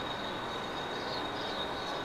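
A train running on the rails as a steady, even rumble and hiss, with a thin steady high whine above it.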